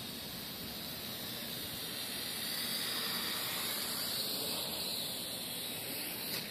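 WLtoys V959 micro quadcopter's motors and propellers whirring in flight, a steady high hiss that swells a little in the middle.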